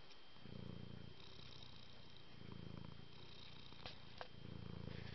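Domestic cat purring, a low purr that swells in cycles about every two seconds with the cat's breathing. Two light clicks about four seconds in.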